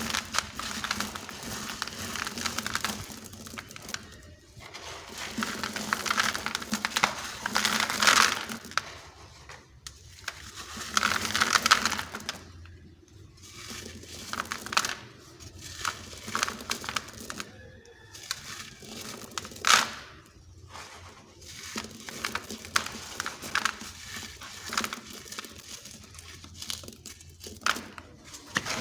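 Dry, dusty sand-cement blocks crumbling and being crushed, a gritty crunching and crackling that comes in irregular bursts with short pauses between.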